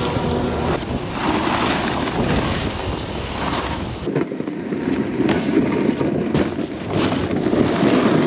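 Wind rushing over an action camera's microphone together with a snowboard sliding and scraping over groomed snow as the rider moves down the slope.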